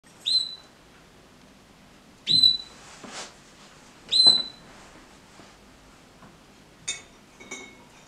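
Red-factor canary giving three loud, rising whistled call notes about two seconds apart, followed by two short, quieter chirps near the end.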